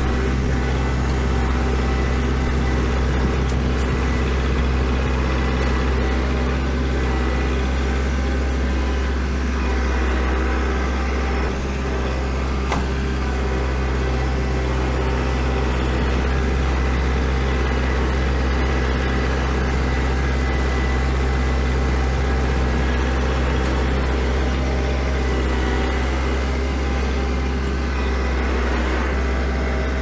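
Kubota L4701 compact tractor's four-cylinder diesel engine running steadily while the tractor drives through snow, heard from the operator's seat.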